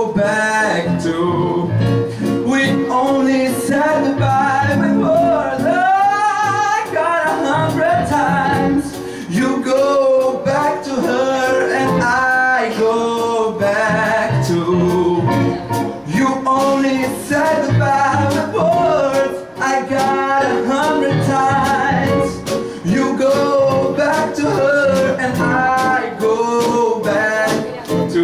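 Live band playing a song: a man sings over keyboard, electric guitar and a drum kit keeping a steady beat.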